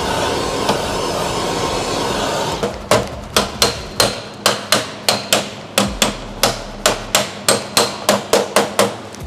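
Hammer striking the underside of a Porsche 911's steel floor pan, working the repaired rip from beneath: a steady run of sharp metallic blows, about three a second, starting near three seconds in. A steady hiss fills the first few seconds before the blows begin.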